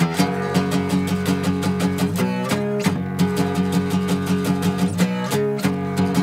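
Instrumental passage of a lo-fi punk song: a guitar strummed in a steady, even rhythm, with no singing.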